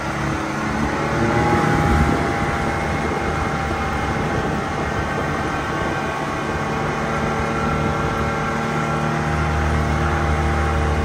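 Vehicle engine running while driving, its pitch rising about a second in and then holding steady.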